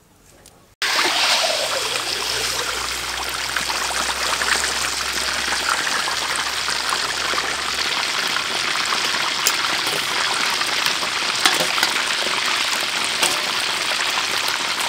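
Whole chicken deep-frying in a wok of hot oil: a loud, steady sizzle and bubbling with scattered crackles, starting suddenly about a second in.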